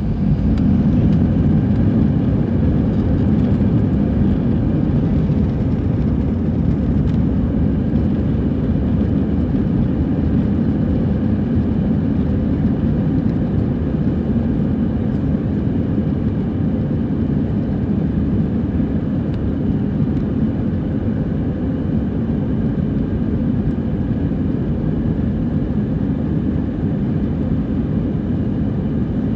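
Airbus A320's twin turbofan engines at takeoff thrust, heard from inside the cabin over the wing, with the deep rumble of the takeoff roll and faint steady engine tones above it. The sound swells in the first second as the engines spool up, then holds steady.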